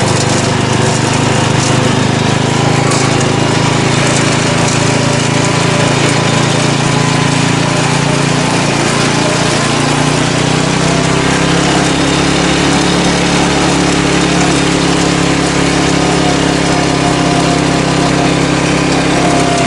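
Small lawn-mower engine of a homemade go-kart running under load as the kart is driven across grass; its note drops lower about halfway through.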